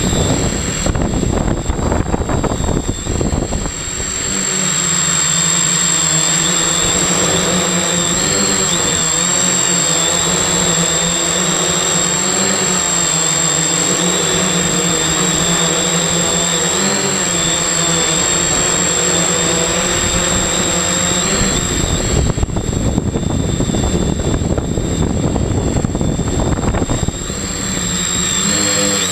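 Multirotor drone's electric motors and propellers running in flight, heard from a camera on the frame: a steady buzzing hum whose pitch wavers as the throttle changes. It turns rougher and noisier about one to four seconds in and again for several seconds near the end.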